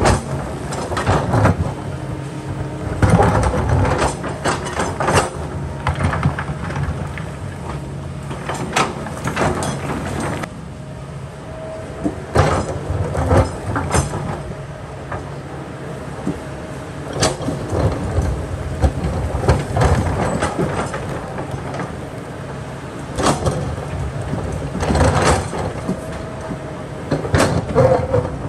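Kobelco excavator's diesel engine running steadily under load, with irregular sharp clanks and scrapes of the steel bucket against large rocks, easing off for a few seconds in the middle.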